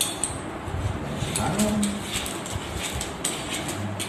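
Handheld Y-shaped vegetable peeler scraping the skin off a green mango in repeated short, irregular strokes.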